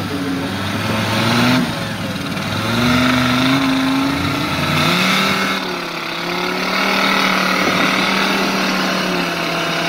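Off-road prototype engines revving hard as the vehicles struggle in a mud ditch. The pitch rises and falls in repeated pulls, then holds a steadier note from about six seconds in.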